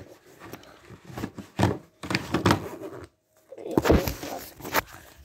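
Phone-microphone handling noise: irregular rustling and scraping with a few dull bumps, the loudest about four seconds in.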